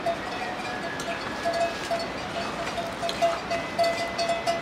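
Irregular light metallic tinkling at a single pitch, repeating every fraction of a second, with faint clicks.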